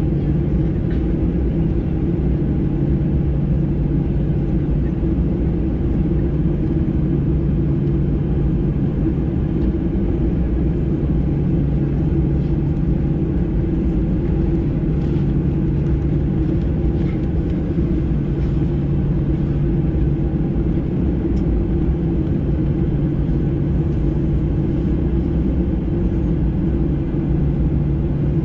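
Steady cabin rumble of a Boeing 737-800 with its CFM56-7B engines running, heard from a window seat. The drone is low and even, with no rise or fall in pitch.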